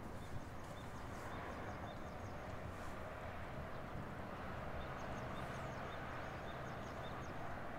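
Outdoor ambience: a steady hiss with faint, short high-pitched bird chirps coming in two runs, one in the first half and one in the second.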